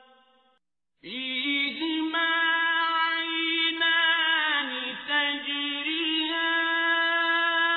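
A male Quran reciter chanting a verse in the slow, melodic mujawwad style. He comes in about a second in after a brief pause and holds long, ornamented notes.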